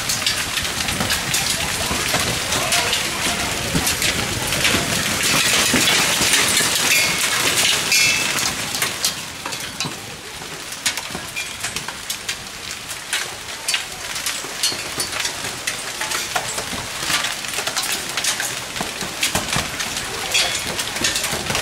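Hailstones and rain pelting hard surfaces in a hailstorm: a dense patter crowded with sharp individual clicks of ice striking. The hail is heaviest in the first half, then eases a little about ten seconds in.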